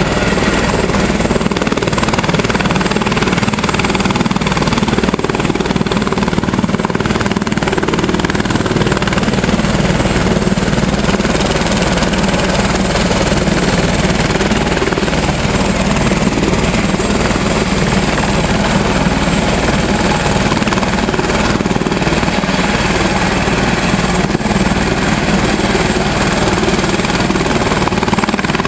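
A helicopter running on the ground, a loud, steady noise that holds the same pitch throughout.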